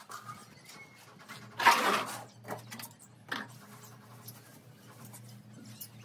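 A bird-seed feeder tray being emptied and cleaned: one short rushing burst about a second and a half in, then a couple of light knocks, over a faint steady hum.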